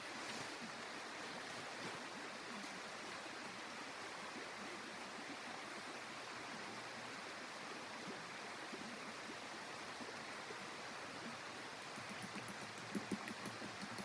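Steady rushing noise of blizzard wind. A short run of sharp ticks comes near the end.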